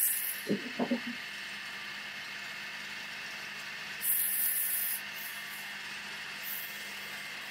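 Electric motor of a small wood lathe running with a steady hum. There are a few light knocks in the first second and a brief high hiss about four seconds in.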